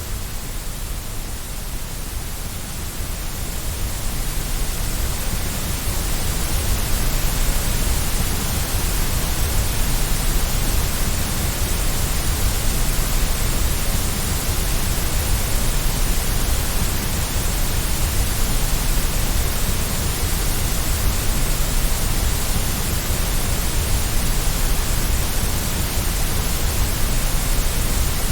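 Steady synthetic white noise, an even hiss across all pitches with no tones or events, a little softer for the first few seconds and then constant.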